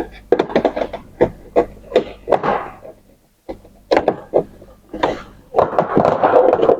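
Hard plastic parts of a printer ink-tank assembly being handled and fitted: a quick series of knocks and clicks, a brief pause, then more knocking and a scraping rub near the end.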